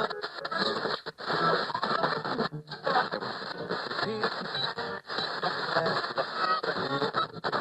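A radio being tuned across the dial: snatches of music and talk from different stations, cutting out briefly and switching abruptly a few times as the tuning moves.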